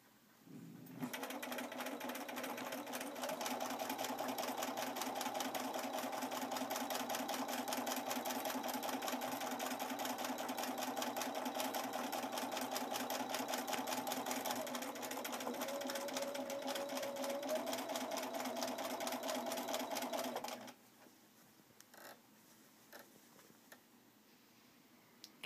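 Bernina sewing machine doing free-motion stitching: the motor hums under a fast, even clatter of needle strokes, building up to speed over the first few seconds, slowing briefly past the middle, then stopping suddenly about five seconds before the end. A few faint clicks follow.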